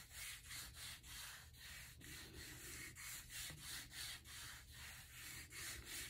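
A cup's flat base rubbed back and forth over copy paper laid on a gel printing plate, burnishing the print onto the paper: a faint, hissy rubbing at about two strokes a second.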